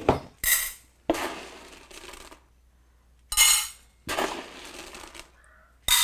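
Dry parrot pellets scooped from a plastic tub and poured into stainless steel bowls, rattling against the metal in several short bursts, the loudest about three seconds in.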